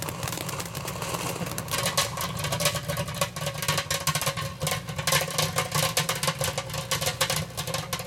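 Microwave oven running with a steady low hum while fireworks burning inside its cavity crackle and pop. The crackling grows dense from about two seconds in.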